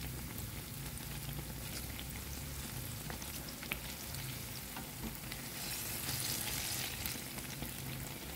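Battered banana slices deep-frying in hot oil over high heat: a steady sizzle with scattered crackling pops, swelling louder about six seconds in.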